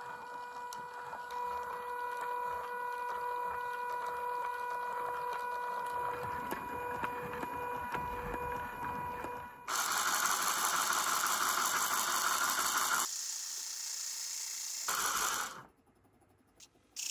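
DC motor running a 3D-printed gearbox and threaded rod in a linear actuator, driving the piston: a steady mechanical whine. About ten seconds in it turns louder and harsher for a few seconds, stops abruptly, briefly runs again, and goes nearly silent just before the end.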